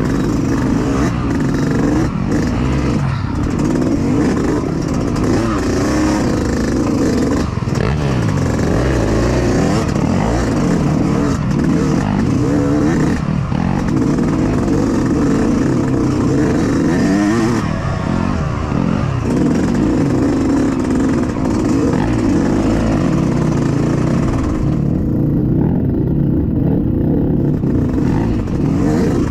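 Yamaha YZ125X two-stroke dirt bike engine under race riding, revving up and down over and over as the throttle is worked. The sound goes briefly muffled about 25 seconds in.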